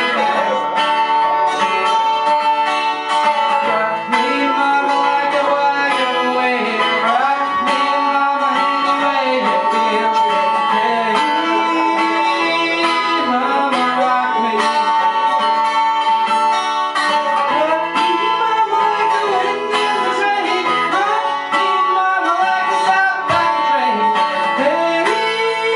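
Live acoustic guitar playing, with a steady held note sounding above it for most of the passage.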